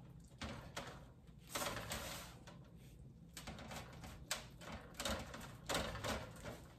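Knife cutting through a baked pie's crust, scraping and tapping against the thin aluminium foil pie tin in a series of irregular soft clicks and scrapes.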